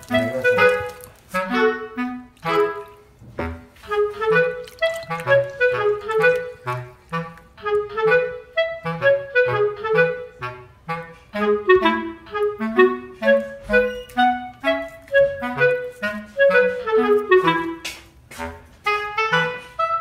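Background instrumental music: a lively melody in quick runs of notes over lower bass notes.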